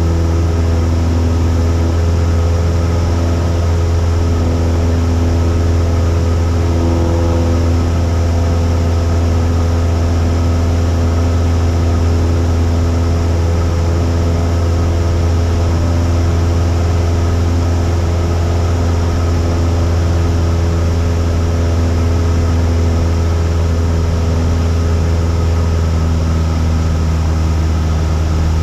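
Cessna 172's piston engine and propeller droning steadily in cruise, a constant low hum heard from inside the cabin.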